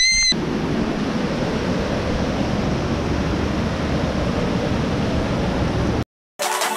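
Water rushing down the concrete channels of a small dam, a steady loud rush that cuts off abruptly near the end.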